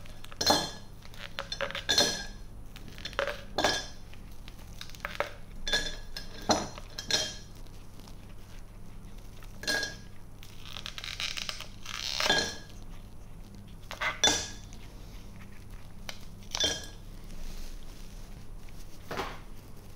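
Ice cubes pushed out of a flexible ice tray drop one at a time into a tall glass, clinking against the glass and the ice already in it. There are a dozen or so separate clinks at irregular intervals, with a short rattle of several together about eleven seconds in.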